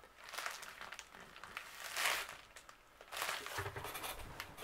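Black plastic poly mailer bag crinkling as hands grip and handle it, in three short bursts.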